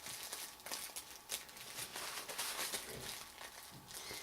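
Gift-wrapping paper rustling and crinkling in light, scattered ticks as washi tape is peeled off it.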